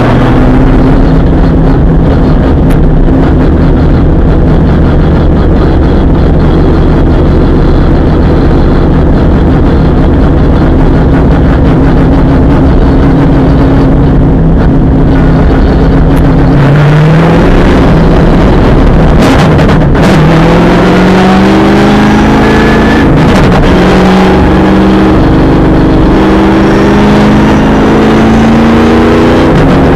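V8 Supercar's V8 engine heard from inside the cockpit, running loud at steady revs, then from about halfway accelerating hard: the revs climb in a series of rising runs, each cut short and dropping back at a gear change.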